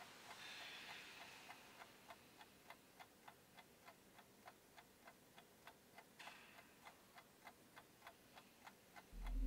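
Faint ticking of a clock, about three ticks a second, with soft rustling of bedding in the first second. A loud low drone swells in just before the end.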